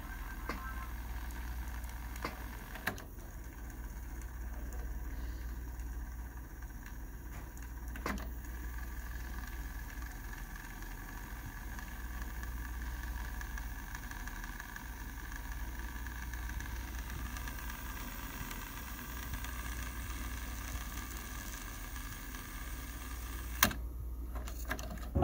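Nakamichi RX-505 cassette deck fast-winding a tape: a steady low motor-and-reel whir with a faint high whine. There are sharp clicks of the transport about 3 and 8 seconds in, and a louder click near the end.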